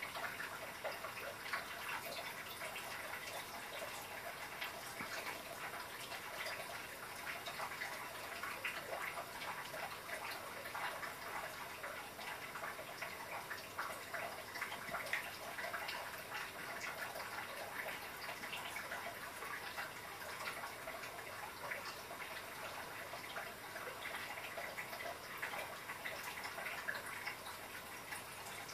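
A cat eating from a small bowl, scooping food with its paw: irregular small clicks and chewing noises over a steady hiss.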